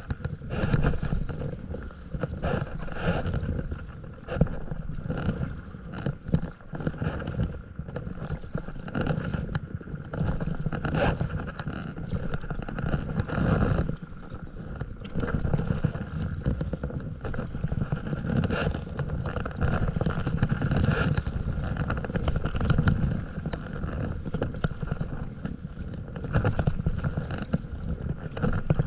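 Wind buffeting the microphone over water splashing and swishing around a stand-up paddleboard as it is paddled, in uneven surges every second or two.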